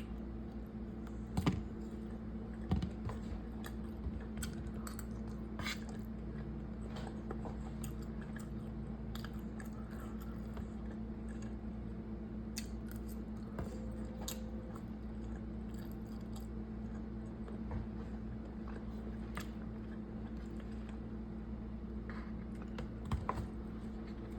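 A person chewing food, with scattered small clicks and a steady low hum underneath.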